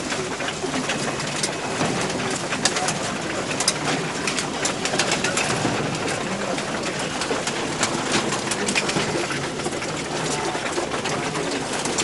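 A crowded cage of fancy pigeons cooing, with many sharp clicks and taps as they flap and peck at feed on the wire floor, thickest in the middle of the stretch.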